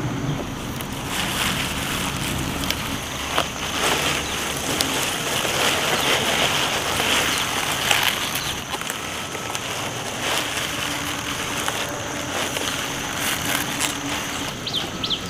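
Green onion stalks rustling, with small snaps and clicks, as scallions are pulled up by hand from the soil and handled.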